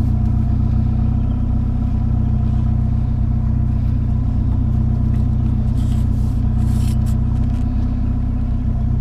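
Vehicle engine idling steadily with an even low hum, with some faint rattling about six to seven seconds in.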